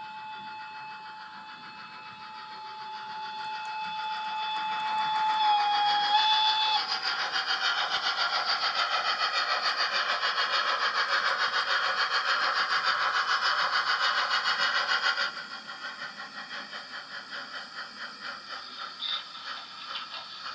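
Sound decoder of a Trix E 991 model steam locomotive: a long steady steam whistle that dips slightly in pitch near its end. About seven seconds in it gives way to fast, loud rhythmic chuffing, which drops to a quieter steady chuff about fifteen seconds in.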